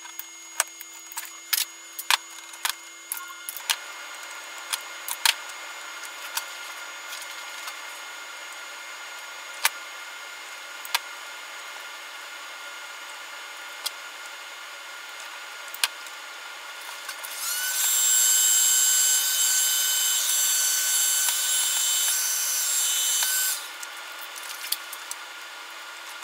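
Irregular sharp clicks and snips of hand wire cutters and crimpers as harness wires are cut to length and terminals crimped. About two-thirds of the way in, a small electric tool motor runs with a steady high whine for about six seconds, then stops.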